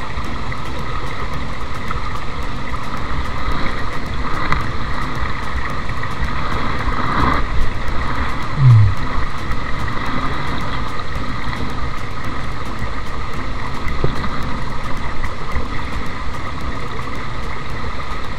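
Small stream running over rocks close by, a steady rush of water. About halfway through there is one short, louder low sound that falls in pitch.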